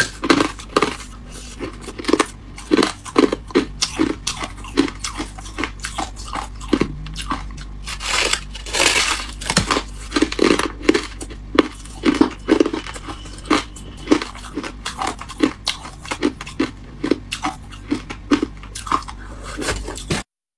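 A person biting into and chewing a slab of freezer frost close to the microphone: a steady run of crisp, icy crunches a few times a second. The sound cuts off suddenly near the end.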